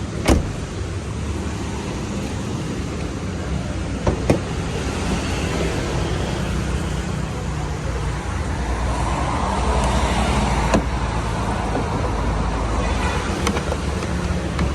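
Toyota Prius engine running with a steady low hum, with a few sharp clicks. The car is logging a cylinder 3 misfire (code P0303).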